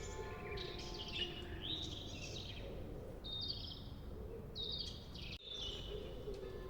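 Birds chirping, with repeated short chirps and quick trills over a steady low background hum; the sound drops out for an instant about five seconds in.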